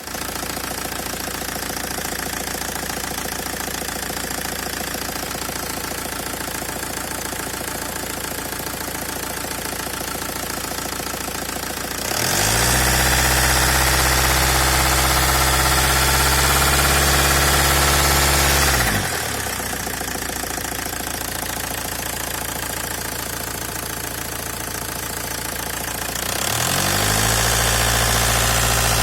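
Y22DT diesel engine running, recorded for an extraneous noise the owner is chasing. It idles steadily, is held at raised revs from about twelve seconds in, drops back to idle about seven seconds later, and near the end is raised and held again.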